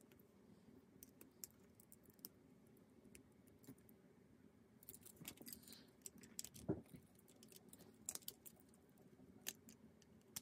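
Lego Technic plastic pieces being handled and pressed together: faint, scattered small clicks and light rattles, with the loudest knock about seven seconds in.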